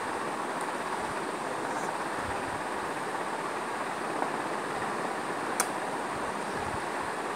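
Steady, even background hiss with no speech. A single sharp click about five and a half seconds in, with a fainter tick a little before it.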